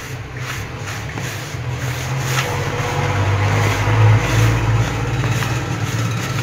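Hands rubbing coarse semolina with melted butter and oil in a bowl, a gritty rustle of grains being worked until the mix turns sandy. Under it runs a low engine-like hum that grows louder in the middle and then eases off.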